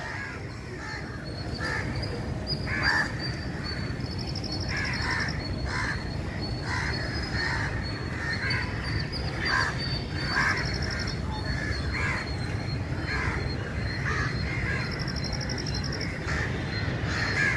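Crows cawing over and over, short calls repeating every second or so, with a thin high trill at times and a steady low rumble underneath.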